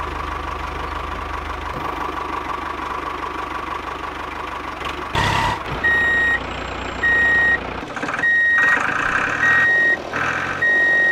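Vehicle engine running steadily. About five seconds in a short burst of noise, then a reversing alarm beeping: five high beeps, one every second or so, as the vehicle backs up. The engine rumble fades out during the beeps.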